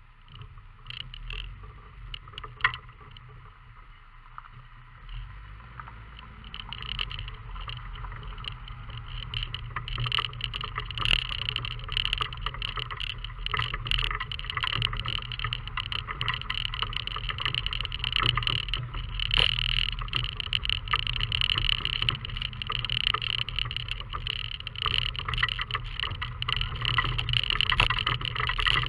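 Fiat Panda 4x4 driving slowly over gravel and dirt tracks, its engine a steady low hum under the crunch of tyres on stones and frequent small knocks and rattles. The noise grows louder after the first several seconds as the car gets under way.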